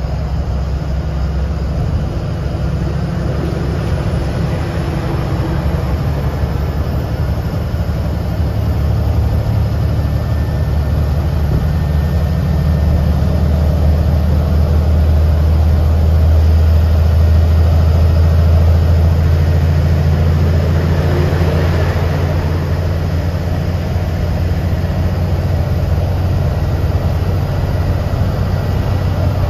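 Engine of a BS6 bus, heard from the driver's cabin while it drives along the highway: a steady low drone with road noise, swelling a little in the middle and easing toward the end.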